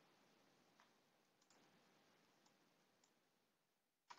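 Near silence broken by a few faint computer mouse clicks, spaced out, the last one near the end a little louder.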